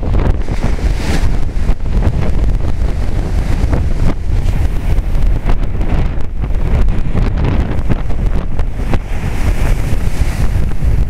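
Hurricane-force wind buffeting the microphone in a loud, constant rumble, over storm surf breaking on the beach. The rush of the surf swells about a second in and again near the end.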